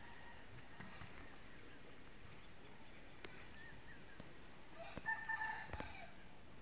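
A rooster crowing once, about a second long, near the end, over a faint outdoor background.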